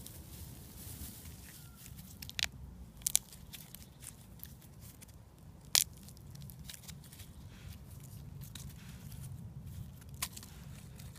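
Hands handling dry grass and hazelnut husks: low rustling with a few sharp cracks, about two and a half, three and six seconds in and once more near the end.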